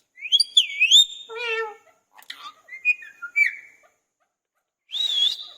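Indian ringneck parrot whistling and calling: a rising, wavering whistle about a second long, then a short nasal call, a cluster of chirpy whistled notes, and another wavering whistle near the end.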